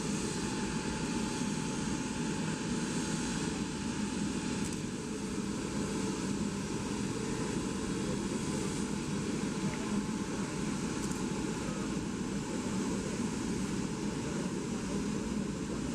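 Steady, even rumble and hiss of jet aircraft engines running, with no change in level.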